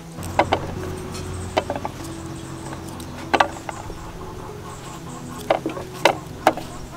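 Kitchen knife cutting through a cucumber held in the hand, with the cut chunks dropping into a woven bamboo tray: about eight short, crisp crunches and taps at irregular intervals, over a low steady hum.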